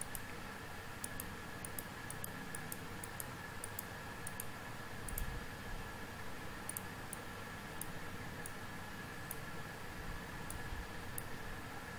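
Computer mouse clicking many times over a faint steady hum, as vertices are placed along a road line while it is traced in GIS software. The clicks come in quick runs during the first five seconds and are more scattered after that.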